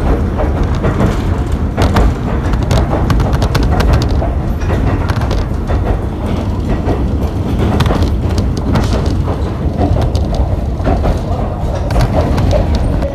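Kōnan Railway Ōwani Line train running, heard from on board: a loud, steady low rumble with frequent clicking and rattling from the wheels and car body.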